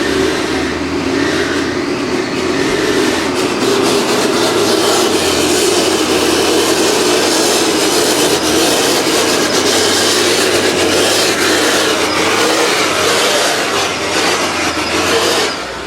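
Hino truck's diesel engine running loud and steady under load as the truck drives through the mud, dropping away shortly before the end.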